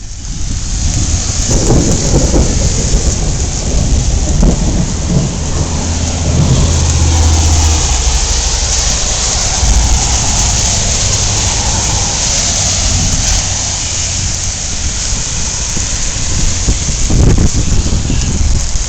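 Heavy rain pouring down, with a long low rumble of thunder that is strongest in the first half and swells again near the end.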